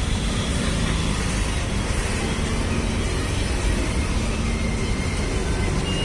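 Steady background road-traffic rumble, an even noise with no distinct events.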